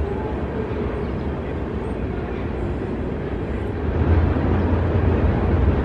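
Steady low rumbling noise with no distinct events, growing louder about four seconds in.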